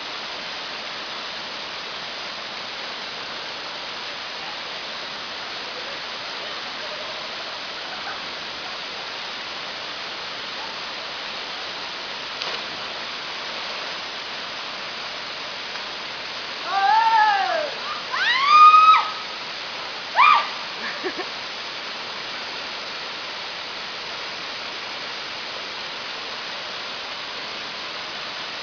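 Waterfall rushing steadily. About two-thirds of the way through come a few short, high calls that rise and fall in pitch.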